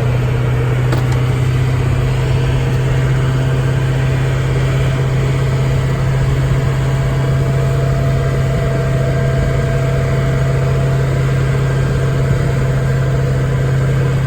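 Safari tram's engine running steadily, a loud even low hum with a fainter higher tone above it.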